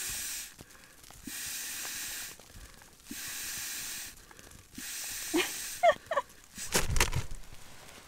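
Air being blown by mouth into an inflatable sleeping pad's valve to top it up: four long, even breaths about every second and a half. Near the end, a short squeak and a few knocks and rustles of handling.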